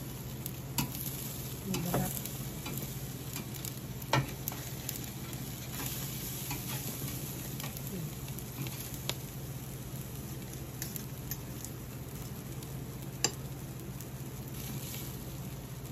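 Yellowtail fish sizzling on an electric grill, with a few sharp clinks and scrapes of a metal spatula and tongs against the wire grate as the skin that has stuck to it is prised loose. The sharpest clinks come about 4 seconds in and again near the end.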